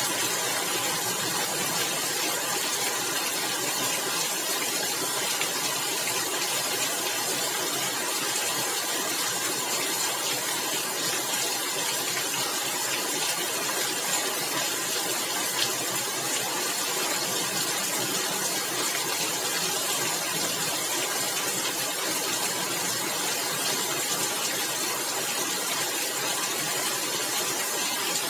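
Steady rain falling on clay roof tiles: a dense, even hiss of drops that holds at one level throughout, with a single louder tap a little past halfway.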